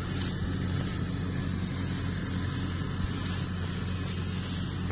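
Steady, even drone of a combine harvester's engine running, a low hum that holds one pitch.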